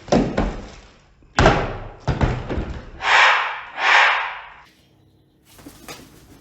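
Things being banged about during an eclectus parrot's tantrum: two loud bangs about a second apart, each fading out, then a clatter and two harsh rushing bursts.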